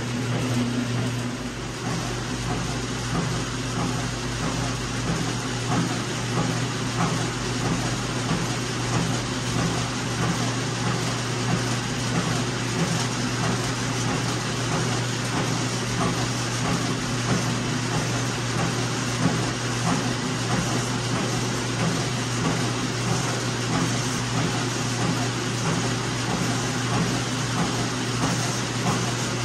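Steady machine hum and whir with a constant low tone, running evenly throughout.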